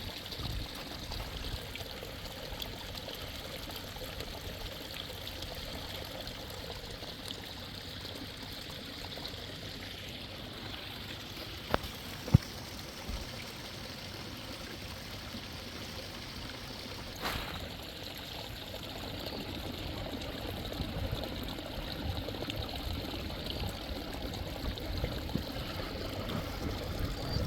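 Hot spring water flowing and trickling steadily. Two sharp knocks come close together about halfway through.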